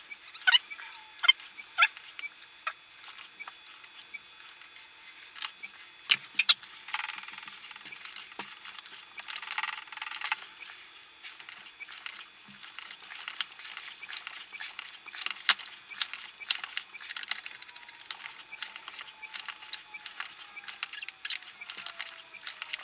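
Hand-lever pressure pump of a watch depth-test tank being worked stroke after stroke, giving an irregular run of sharp clicks and clacks, with two brief hisses about seven and ten seconds in. Each pull raises the pressure, adding about two meters of simulated water depth.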